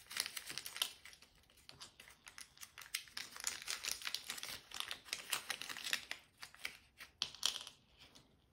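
Small clear plastic parts bag crinkling as it is opened and handled and small M2 screws are picked out of it: quick light crackles and clicks, thinning out near the end.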